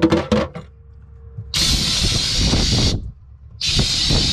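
Compressed air from a high-volume compressor blasting out of a trailer kitchen faucet whose head and flow restrictor have been removed, blowing the water line out for winterization. It makes a loud, steady hiss carrying a spray of water, in two bursts: one starting about a second and a half in and lasting about as long, the other starting near the end. A few metallic clinks come just before the first burst.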